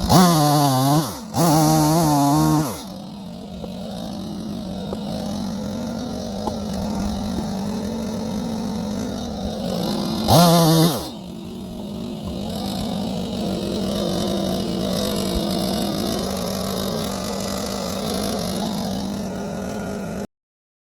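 Holzforma G255 two-stroke chainsaw, a 45.4cc Stihl MS 250 clone, running steadily. It is revved up briefly twice in the first three seconds and once more about ten seconds in. The sound cuts off suddenly near the end.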